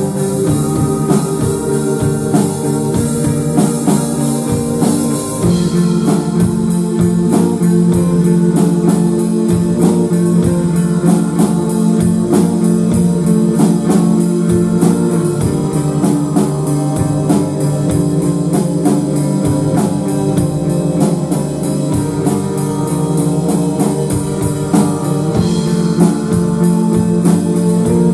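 Live rock band playing: electric guitar over a drum kit, with long held tones underneath. A dense, steady drum beat picks up about five seconds in.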